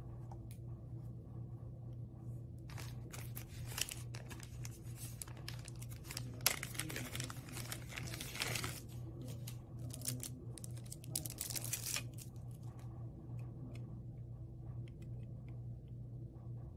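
Frosted plastic bag crinkling and crackling as hands pull it open around a pair of glasses, off and on from about three seconds in, loudest in the middle, dying away about twelve seconds in.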